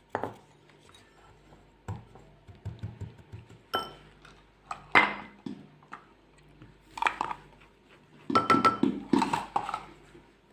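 A utensil clinking and scraping against a mixing bowl in short, separate strokes as salt is stirred into flour, with a run of quick taps about two and a half seconds in and a busier flurry of strokes near the end.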